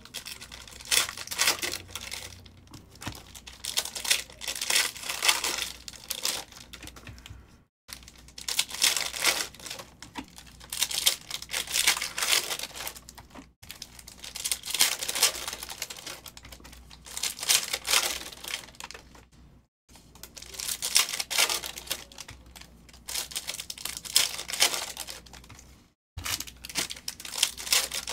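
Foil trading-card pack wrappers crinkling and tearing as packs are ripped open by hand, in repeated bursts a second or two long.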